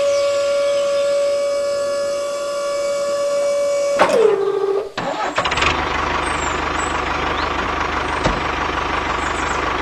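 A steady high whine that drops in pitch about four seconds in and cuts off, followed by a small tractor engine running steadily with a regular low chug.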